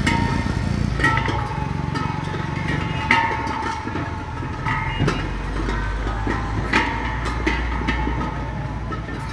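A small engine runs in the background while sharp metallic clanks ring out every second or so as steel gas cylinders are knocked and set down.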